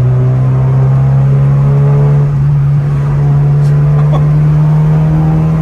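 Car engine droning inside the cabin under way, its pitch climbing slowly from about two seconds in as the car gathers speed.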